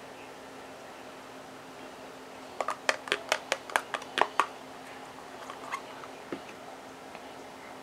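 A quick run of about ten sharp clicks and taps over roughly two seconds, then a few fainter ones: a metal table knife knocking and scraping against a small plastic cup of reconstituted mayonnaise.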